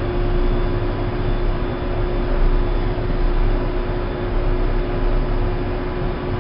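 Tractor engine running steadily under way, heard from inside the cab: a constant drone over a low rumble with road and cab noise.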